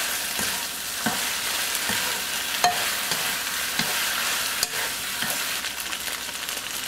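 Stir-fried taro cakes, pork and vegetables sizzling steadily in a nonstick wok while a wooden spatula stirs them, with irregular knocks and scrapes of the spatula against the pan.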